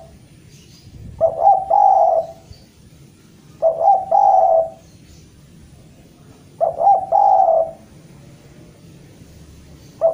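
Spotted dove cooing: three full calls about every three seconds, each a couple of quick short notes running into a longer coo, with a fourth call starting at the very end. It is the bird's call to a rival.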